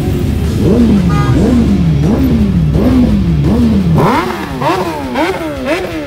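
Superbike engines being revved over and over in quick throttle blips, the pitch jumping up and sliding back down about one and a half times a second. About four seconds in, the low rumble drops away and the blips carry on higher and a little quieter.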